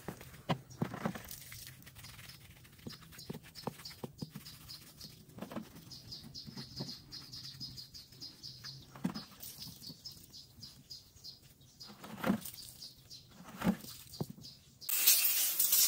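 Oily metal gearbox valve block from a MAN truck being washed by hand in a puddle of fluid: scattered small knocks, clicks and splashes, with faint high chirping in the background. About fifteen seconds in, a loud steady hiss of a compressed-air blow gun starts.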